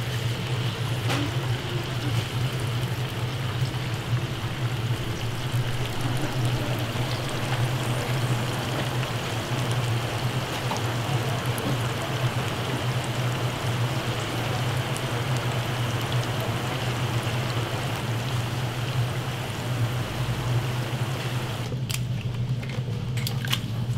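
Fresh-cut potato fries deep-frying in the baskets of a commercial fryer, the hot oil bubbling and sizzling steadily over a steady low hum. Near the end the bubbling drops away and a few sharp clicks are heard.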